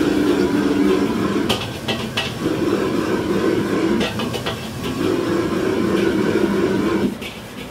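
Wok being shaken and tossed over a wok burner: a rough, rattling grind of the pan against the burner ring, with the ladle clanking against the wok a few times. The grinding drops away near the end.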